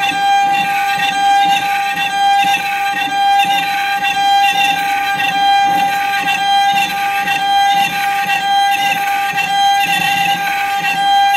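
CNC router spindle whining at a steady high pitch while its tapered bit carves wood, with the cutting noise rising and falling about once a second.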